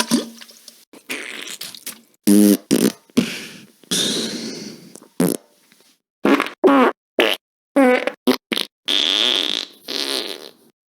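A quick series of about fifteen separate fart sound effects, played one after another with short dead-silent gaps between them. Some have a buzzing pitch that wavers, and others are short noisy sputters.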